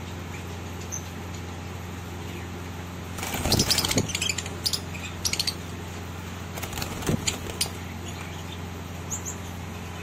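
A cage of African lovebirds giving short, high chirps every so often. The chirps come in a louder cluster about three and a half seconds in and again around seven seconds, over a steady low hum.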